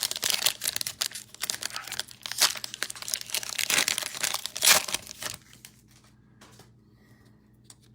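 A football trading-card pack being torn open, its wrapper crinkling and tearing for about five seconds before it goes much quieter.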